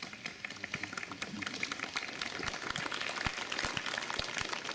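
A crowd applauding, many hands clapping together.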